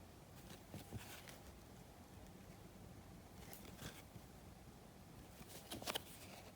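Faint rustling and soft clicks of trading cards being handled, in three short clusters: about a second in, midway, and loudest near the end.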